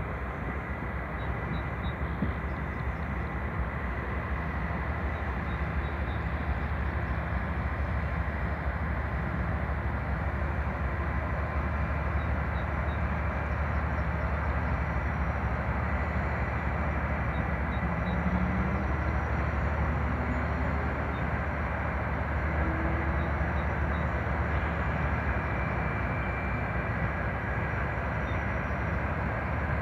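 Steady low drone of a towboat's diesel engines as it pushes barges along the river, even in level throughout.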